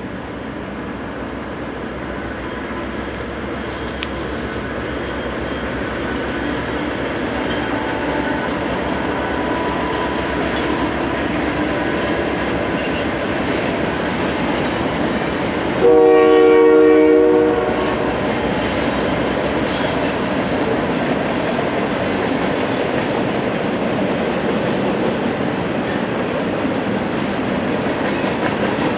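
A freight train hauled by EMD diesel locomotives passing, its engine and rail noise growing louder as it approaches. About halfway through the lead locomotive sounds its horn once for about a second and a half, then the freight cars rumble and clack steadily over the rails.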